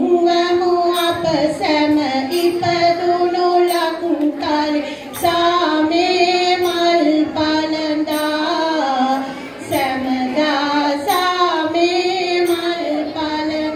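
A song sung in a high voice, with held notes that glide from one pitch to the next, over musical accompaniment.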